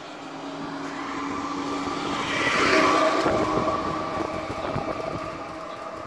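A motor vehicle passing on the road: its engine sound grows louder to a peak about halfway through, then fades away.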